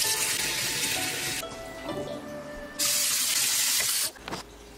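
Kitchen tap water running into a bowl in a steel sink, in two bursts of about a second and a half each. Each burst cuts off suddenly. Soft background music carries on underneath.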